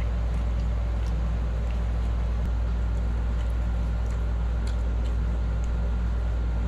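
Steady low hum of a room machine, unchanging throughout, with a few faint ticks of a fork against a foil pan.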